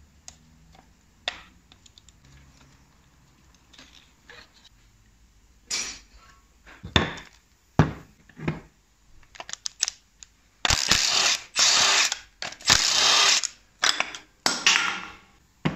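Cordless impact wrench hammering in about five short bursts in the second half, undoing bolts on the front of a BMW V8 engine as a pulley comes off. Before that, a few sharp metal clinks of sockets and hand tools being handled.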